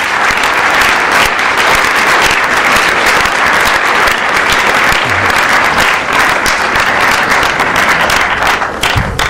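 Audience applauding, a steady dense clapping that begins to die away near the end.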